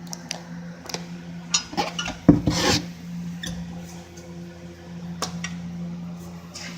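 Hands working AdBlue pump and heating-element parts into place: rubbing and scraping with scattered clicks, and a louder knock and clatter about two and a half seconds in, over a steady low hum.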